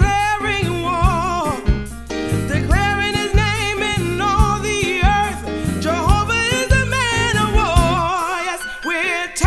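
Gospel worship song: a singer holding melodic lines with vibrato over bass and drums. The bass drops out briefly near the end.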